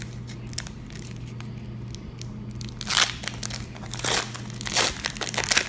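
Foil Pokémon booster pack wrapper crinkling and tearing as it is handled and opened, in several short loud bursts from about three seconds in.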